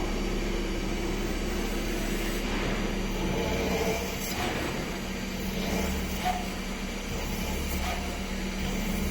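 Hoston WLL-SRS650B CNC metal spinning machine running with a steady mechanical hum, with a few faint short scrapes over it.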